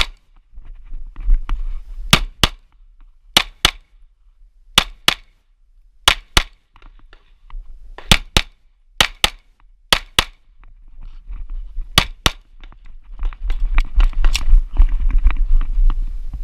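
Pistol shots fired on a USPSA stage, about fifteen in all, mostly in quick pairs (double taps) with a second or more between pairs while the shooter moves between targets. Near the end there is a loud stretch of low rumbling noise with no shots.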